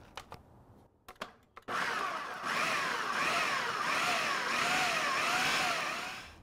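Food processor motor running for about four and a half seconds, with a whine that wavers up and down as the blade coarsely chops roasted red pepper, shallot, garlic and chilies. A few light clicks come before it starts, and it stops just before the end.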